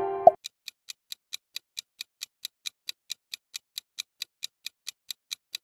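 Clock-style ticking sound effect counting down the guessing time, even ticks at about four to five a second. A held musical note stops about a third of a second in, just before the ticking starts.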